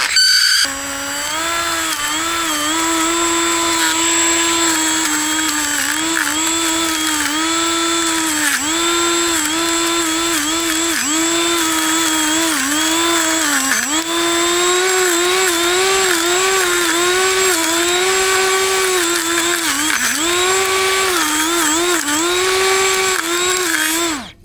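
Drone motor spinning a Master Airscrew plastic drone propeller as a grass cutter: a steady high whine whose pitch sags briefly again and again as the propeller bites into the grass, then recovers. It drops out for a moment just after the start and cuts off suddenly near the end.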